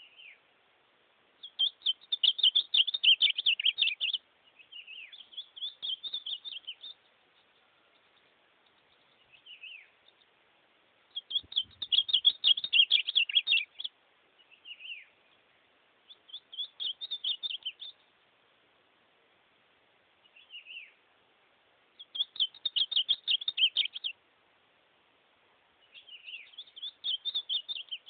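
Ultramarine grosbeak (azulão) singing: six rapid warbled phrases of two to three seconds each, spaced a few seconds apart, with short single falling notes in between.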